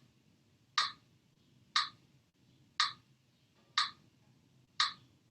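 Steady ticking: one crisp tick each second, evenly spaced like a clock or metronome beat, over a faint room hum.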